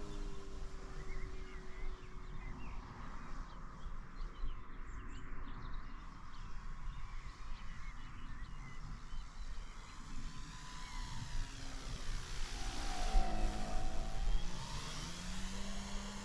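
Electric motor and propeller of a SebArt Katana S 50E aerobatic RC plane whining as it flies a circuit. The pitch slides down slowly at first. From about twelve seconds in it grows louder and the pitch dips and rises again as the plane comes round low.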